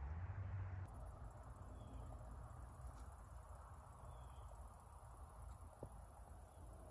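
Quiet woodland ambience: a faint, steady low rumble on the phone's microphone, with a few faint, short, high chirps and a couple of tiny clicks.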